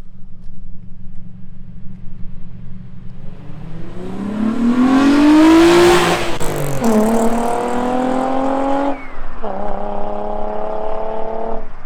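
Car engine accelerating hard at full throttle through the gears of a manual transmission. After a few seconds of low running, the pitch climbs steeply, drops at a quick upshift about six and a half seconds in, climbs again, and drops at a second shift about nine seconds in. It lifts off shortly before the end.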